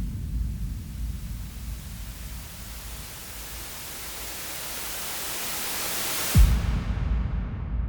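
Synthesized sweep-up riser sound effect: a hiss that climbs in pitch and grows louder for about six seconds over a low rumble. It cuts off in a deep boom hit with a falling sub-bass tone, and the noise tail then sinks away.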